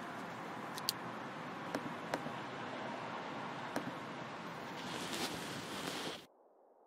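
Steady background hiss with a few faint clicks, cutting off abruptly about six seconds in.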